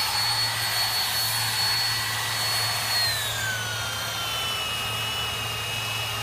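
Hand-held electric power sander running with a steady high whine against the wooden hull of a canal boat, over a hiss of sanding. About three seconds in, the whine drops in pitch and then holds steady at the lower pitch.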